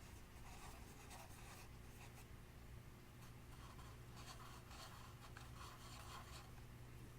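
Clear slime being worked by hand: faint sticky squishing and crackling in two stretches, over a low steady hum.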